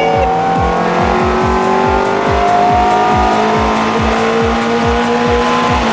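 Electronic dance music with a fast, steady kick drum, about four beats a second, and held synth notes, mixed over a Ferrari F430 drifting with its tyres squealing.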